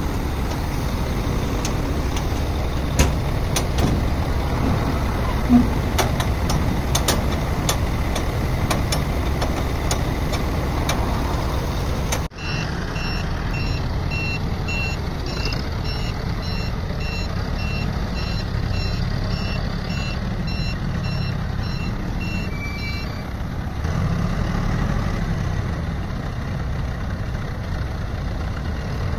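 Forklift engine running steadily, with a few sharp clicks and knocks in the first part. About twelve seconds in, the forklift's reversing alarm starts beeping at an even pace for about ten seconds, then stops while the engine runs on.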